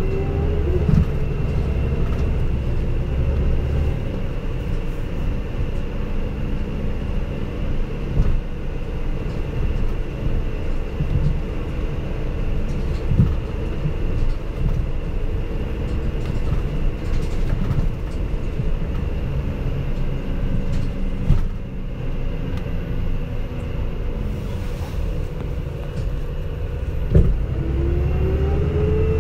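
City bus heard from inside while running: a steady engine drone with road noise, and a rising whine at the start and again near the end. A sharp knock is heard a couple of seconds before the end. The bus is a CNG-converted Isuzu Erga Mio (PDG-LR234J2).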